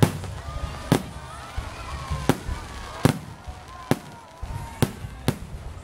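Aerial fireworks shells bursting overhead: about seven sharp bangs at uneven intervals.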